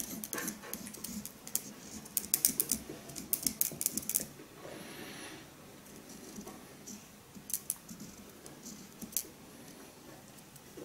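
Felt-tip pen drawing on a pumpkin's rind: short dry scratches and clicks in quick clusters, busiest in the first four seconds, with a few more near the end.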